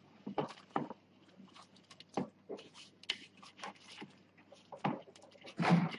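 Scattered quiet rustles and soft taps of an oat, butter and brown-sugar crumble mixture being rubbed together by hand in a bowl, with a short burst of voice near the end.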